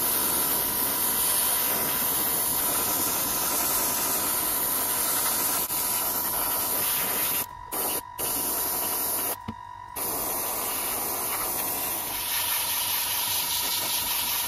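Airbrush spraying thinned paint: a steady hiss of compressed air that stops and restarts three times around the middle, once for about half a second.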